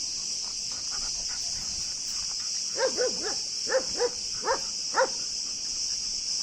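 A dog barking: a quick run of about seven short barks between about three and five seconds in. Behind it is a steady high insect chorus.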